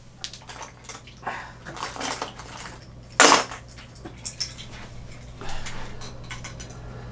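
Hard plastic and metal fishing lures clattering and clinking as they are sorted through by hand, with one louder knock about three seconds in.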